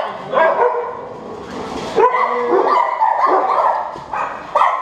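Dogs barking and whining: sharp barks about two seconds apart, with a longer stretch of drawn-out whines between.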